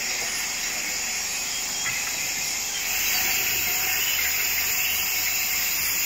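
Tropical night chorus of insects and frogs: a steady, high-pitched hum, slightly louder from about three seconds in.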